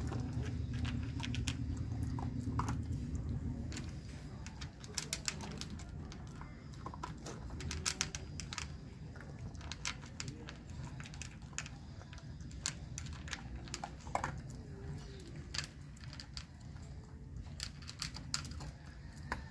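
Dog chewing dry kibble from a bowl: irregular crisp crunches and clicks. A low steady rumble underneath drops away about four seconds in.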